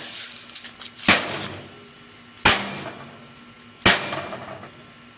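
A microwave's metal casing struck hard three times with a hand tool, evenly about a second and a half apart, each blow a sharp bang with a brief metallic ring.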